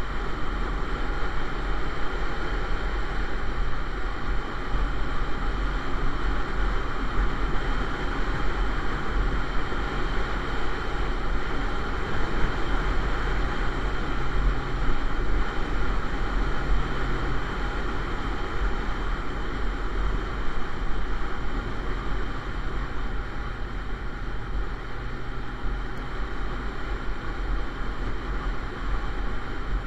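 Motorcycle cruising steadily: a low engine drone under constant wind rush buffeting the microphone.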